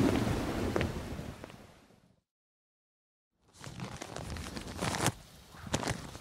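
A rain sound effect with scattered clicks fades out, then after about a second of silence comes rustling with several sharp clicks.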